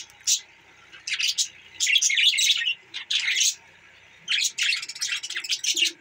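A flock of budgerigars chirping and chattering in short bursts of quick high chirps, with brief pauses between the bursts.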